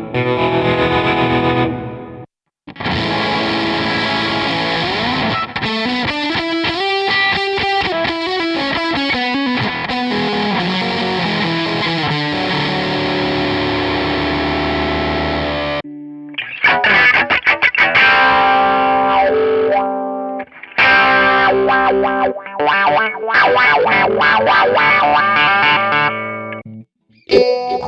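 Electric guitar played through a Digitech RP1000 multi-effects processor on distorted settings, the sound changing between passages as effects are switched. A long held passage has notes that glide up and back down and cuts off suddenly just past halfway, followed by choppier picked riffs with brief breaks.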